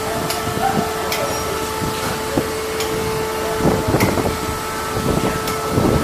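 Light metallic clicks and knocks from hand work in an Abrams tank's engine compartment, over a steady mechanical hum.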